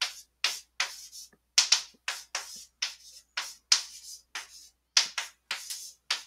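Chalk writing on a blackboard: a quick, irregular run of short tapping and scraping strokes, roughly three a second, as letters and symbols of an equation are chalked on.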